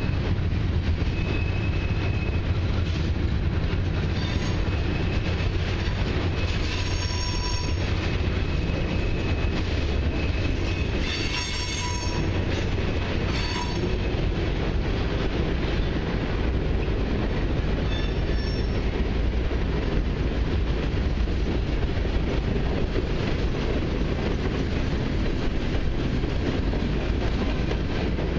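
Freight train cars rolling past, with a steady low rumble of steel wheels on rail and several brief high-pitched metal squeals, mostly in the first twenty seconds.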